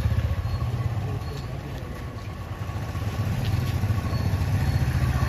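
Low, steady rumble of a vehicle engine idling on a street, rising and falling slightly in level.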